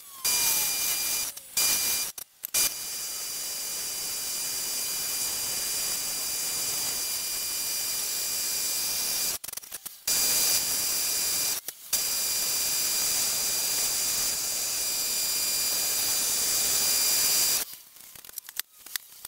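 Wood lathe running with the workpiece spinning free and nothing cutting: a steady hiss with a thin high whine. It is cut off abruptly a few times.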